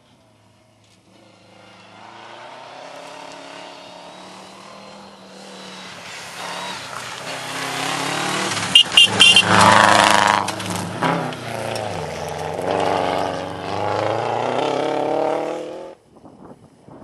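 A rally car's engine at full throttle on a gravel stage, growing louder as the car approaches and passes close by, with a few sharp cracks at its loudest. The engine note then rises and falls through gear changes before cutting off abruptly near the end.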